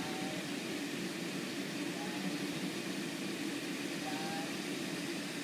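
Steady hum of the electric blower fan that keeps an inflatable water slide inflated.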